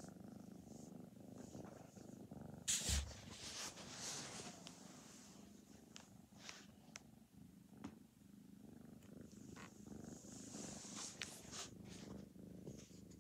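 A four-month-old kitten purring steadily while being petted, close to the microphone. The purr is dotted with brief rustles and knocks, the loudest about three seconds in.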